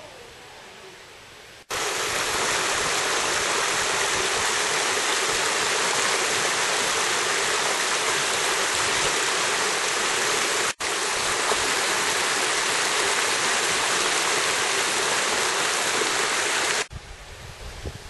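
Rushing stream water, a steady loud hiss that starts abruptly about two seconds in, breaks off for an instant near the middle, and cuts off abruptly about a second before the end.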